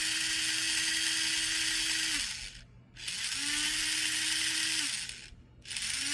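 Small electric motor and gear train of an HO-scale 0-10-0 steam locomotive whirring on the bench in three runs as power is applied and taken away. Each run spins up at the start and winds down when the power is cut.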